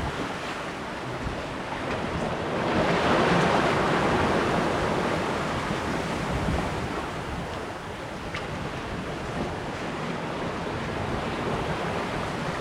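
Lake waves washing and rushing past a sailboat's hull, with wind buffeting the microphone; a wave surges louder about three seconds in.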